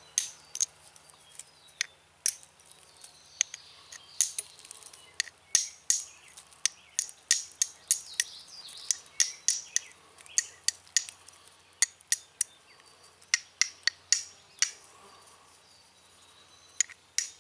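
Sharp, irregular clicks as small flakes are chipped off the edge of a piece of slate with a hand tool, a few per second with short pauses, shaping the stone round for the striking surface of a friction turkey call.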